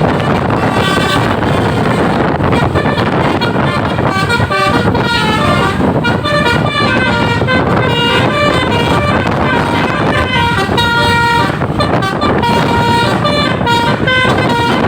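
Bus telolet horn, a Basuri multi-tone musical horn module, playing a melody of short stepped notes over the noise of a running bus.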